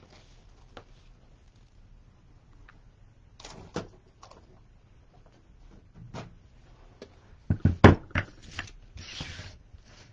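Knocks and thumps of things being handled and set down on a craft table as a wooden bow-maker board is brought out. A few light knocks early on, then a quick run of four or five heavy knocks, the loudest, about three-quarters of the way through, then a brief rustle.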